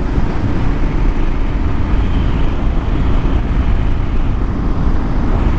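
Kawasaki KLR 650's fuel-injected single-cylinder engine running steadily as the motorcycle is ridden, with a heavy low wind rumble on the microphone.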